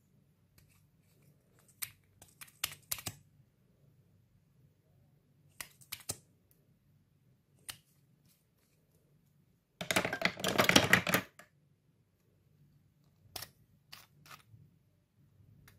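Plastic makeup pens and lipstick tubes clicking as they are handled and opened, in scattered small clicks. About ten seconds in comes a louder rasping rattle lasting about a second and a half.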